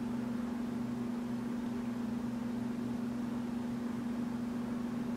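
Steady low hum with a faint hiss behind it, unchanging throughout: background room tone with no other sound.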